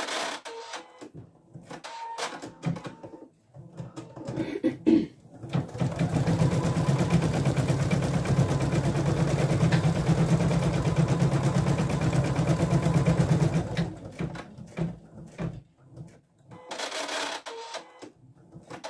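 Husqvarna Viking Designer Diamond embroidery machine stitching steadily for about eight seconds, starting about six seconds in, sewing a white placement line that marks where the first appliqué leaf goes. Around it are scattered clicks and short handling noises, with a brief electronic tone about two seconds in.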